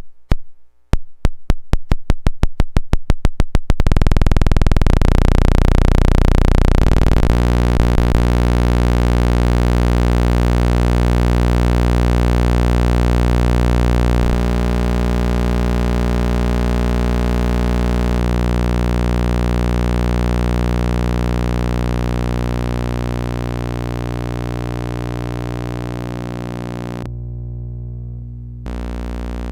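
Old thyratron tube wired as a sawtooth oscillator: a train of clicks that speed up over the first few seconds and merge into a steady buzzing tone with many overtones. The pitch then shifts in steps a few times, and the upper part thins out briefly near the end.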